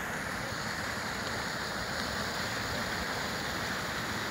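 Water rushing steadily through a breach blown in a beaver dam as the pond drains.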